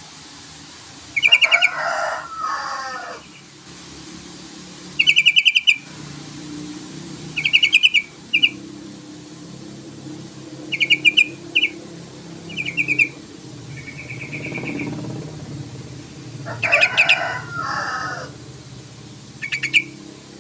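Yellow-vented bulbul (trucukan) calling: about ten short bursts of rapid chattering notes, some followed by lower warbling phrases. This is the bird's challenge call, used to provoke rival trucukan into answering.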